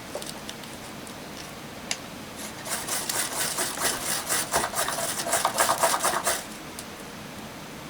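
Ferrocerium firesteel being struck with a scraper: a fast run of rasping scrapes, about seven or eight a second, for nearly four seconds starting a couple of seconds in. Before that come two single scrapes or clicks, all over a steady rain-like hiss.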